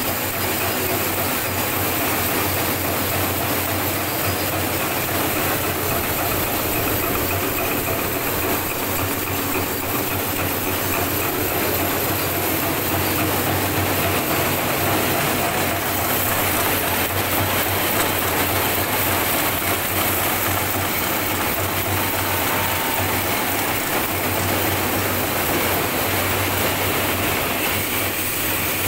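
High-speed automatic assembly lines for 08B roller chain running: a dense, steady metallic clatter of the assembly machines and moving chain, over a low steady hum.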